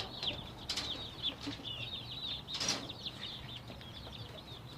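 Chicks peeping, many short high chirps in quick succession, with a couple of brief rustles, about one and three seconds in.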